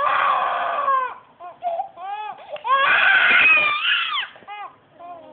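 Baby crying hard during a nose rinse, in bouts: a long cry at the start, a few short cries, a loud long wail about three seconds in, then quieter whimpering near the end.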